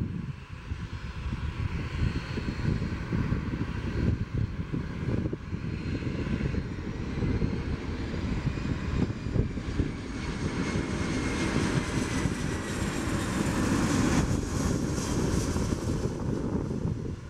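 Airbus A340-313's four CFM56 turbofan engines rumbling and whining as the airliner flies low past, growing louder to a peak near the end, its whine shifting in pitch as it goes by.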